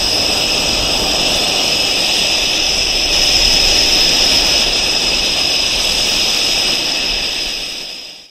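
Panavia Tornado's twin RB199 turbofan jet engines running, a loud steady rush with a high-pitched whine, fading out near the end.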